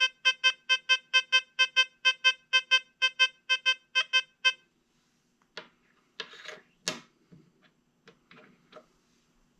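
XP Deus 2 metal detector sounding a fast run of short pitched beeps, about four a second, as a 1944 silver war nickel is passed over its coil. The beeps stop about halfway through, followed by a few clicks and rustles of handling.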